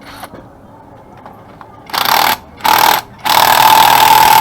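Pneumatic impact wrench run in three bursts, two short pulls and then a longer one of about a second and a half, while the scooter wheel is worked on.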